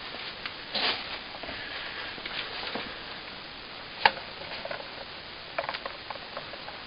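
Scattered clicks and rustling around a wire guinea pig cage with wood-shaving bedding. There is a short rustle about a second in, one sharp click about four seconds in, and a run of small clicks near the end.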